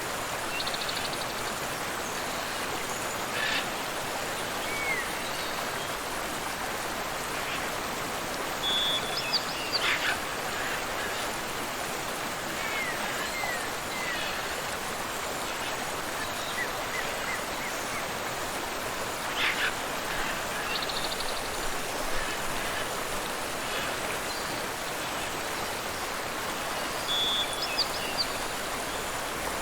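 Steady rush of a waterfall and river, with scattered bird calls over it: short rising chirps and a few brief rapid trills.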